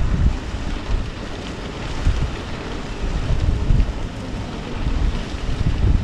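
Wind buffeting the microphone in uneven gusts, over a steady rushing hiss.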